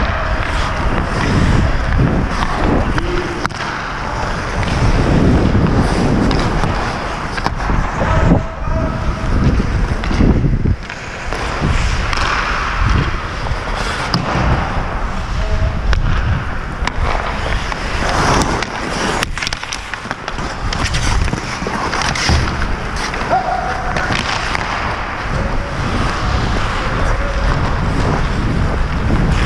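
Ice skate blades carving and scraping across the ice as the wearer of the camera skates, a continuous rough noise with a few sharp knocks.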